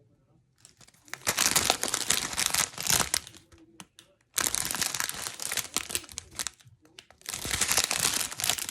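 Plastic packaging of diamond-painting drill bags crinkling and rustling as it is handled, in three long spells with short pauses between.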